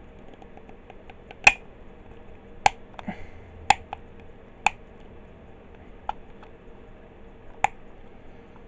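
Sharp plastic clicks from the notched, adjustable headband of a plastic visor headset being ratcheted out to a larger size, one notch at a time. There are about six single clicks at irregular intervals of roughly one to one and a half seconds, with the last one near the end.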